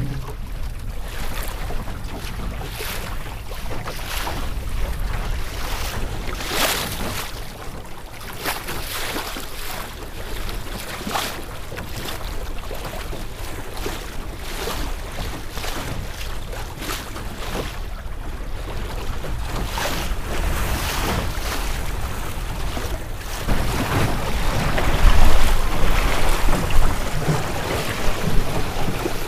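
Water slapping and splashing against a Melonseed skiff's hull as it sails through choppy water, with wind buffeting the microphone. The rush of water grows louder for the last few seconds.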